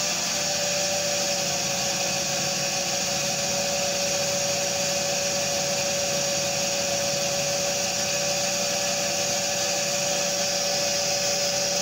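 Separately excited DC motor driving a dynamometer, running steadily with a constant whine over a hiss while its load torque is turned up to about 1.2 N·m. The pitch sags slightly in the first second as the added load slows the motor.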